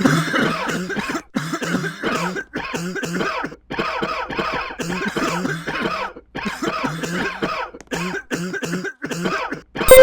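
A person coughing over and over in a long coughing fit, the coughs coming in quick clusters with short breaks for breath between them.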